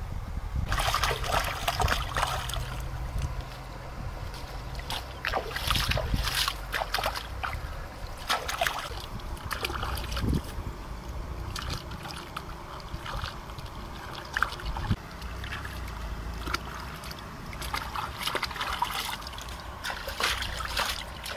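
Shallow river water splashing in irregular bursts as hands grab fish and lift them out, over a low wind rumble on the microphone.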